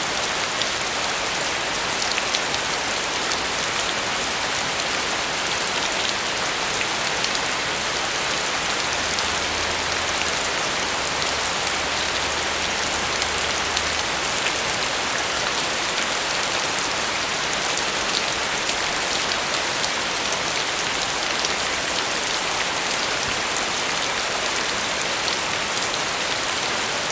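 Steady rainfall: an even hiss of rain with many small drop ticks, holding at the same level throughout.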